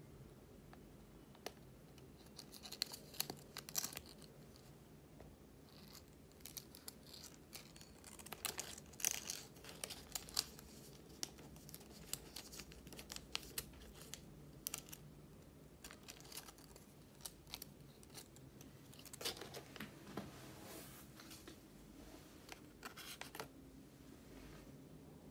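Folded origami paper crinkling and rustling in short, scattered bursts as paper hearts are handled and set down.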